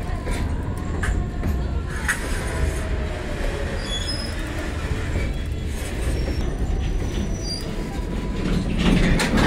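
Loaded open freight wagons rolling past close by: a steady low rumble of steel wheels on the rails, with a few faint, brief high wheel squeals, growing louder near the end.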